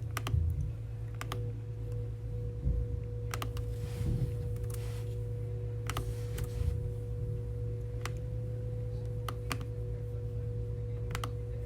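Scattered clicks of typing on a computer keyboard, over a steady low hum and a faint steady tone.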